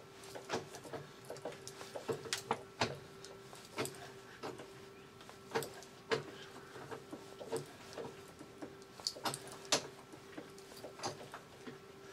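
Irregular metallic clicks and ticks as a 10 × 1.5 mm die in a tailstock-mounted die holder is worked by hand onto a steel shaft held in a lathe chuck, starting the thread. A faint steady hum runs underneath.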